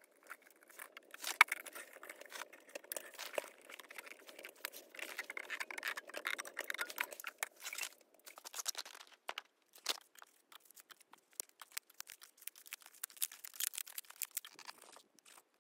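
Hands and a tool working a split log and packing kindling into it: a run of scrapes, small knocks of wood and crinkling, with one sharper knock about a second and a half in.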